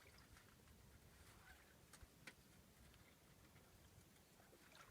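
Near silence, with two faint clicks a little after two seconds in.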